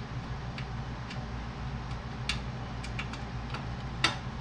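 Scattered light clicks, about seven at irregular intervals with the sharpest near the end, as the hood latch bolts are started by hand with tools, over a steady low hum.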